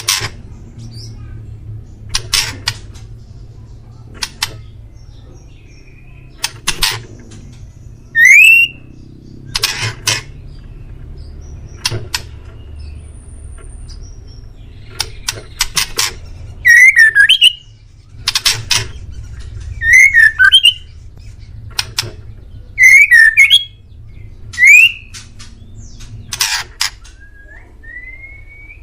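White-rumped shama (murai batu) singing: about a dozen short, loud song phrases a second or two apart, mixing rapid chattering notes with clear rising whistles.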